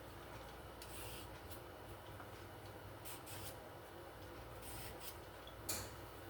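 Faint, intermittent rubbing sounds, with one sharper click about five and a half seconds in.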